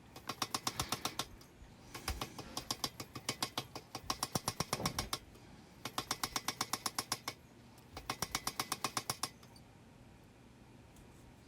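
Power hammer striking hot 52100 steel in five quick runs of about nine blows a second, each run lasting a little over a second, drawing out a knife tang.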